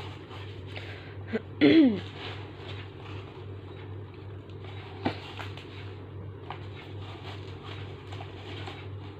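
Handling noises of packaging being unboxed: faint rustles and light taps over a steady low hum. A short, loud squeak falling in pitch comes near two seconds in, and a sharp click about five seconds in.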